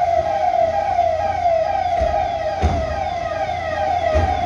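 An official car's roof-mounted siren sounds a rapid falling wail, repeating about three times a second. A few low thumps come in under it.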